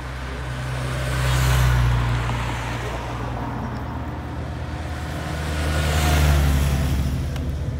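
Race escort vehicles, a car and motorcycles, drive past close by one after another. The engine noise swells and fades twice, peaking about a second and a half in and again about six seconds in.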